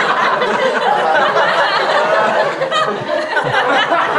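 Laughter that keeps going without a break, right after a joke.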